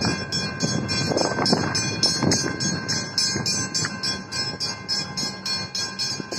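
Railway level crossing warning bells ringing, an electronic bell mixed with a mechanical bell, in rapid even strokes of about four a second, over a low rumble that is stronger in the first couple of seconds.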